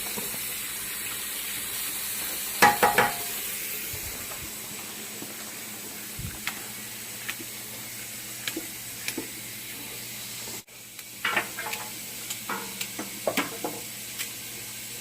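Steady sizzle from a pot of vegetables cooking on the stove, broken by scattered sharp clicks and snips as carrots and celery are cut with kitchen shears and drop into the pot. There is a cluster of snips about three seconds in and another run near the end.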